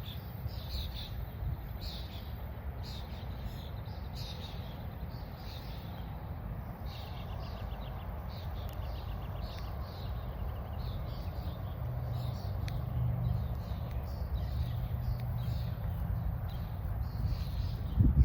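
Birds chirping and calling over and over, with a fast trill about seven seconds in, over a steady low rumble. A brief loud bump comes near the end.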